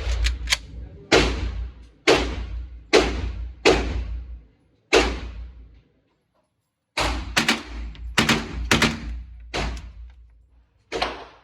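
Semi-automatic gunshots at a shooting range, each with a ringing tail: a string of single shots about a second apart, a pause of about two seconds, then a quicker, uneven string.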